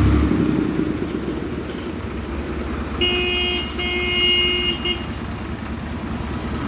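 A vehicle engine running steadily at idle, with a horn sounding in two blasts about three seconds in.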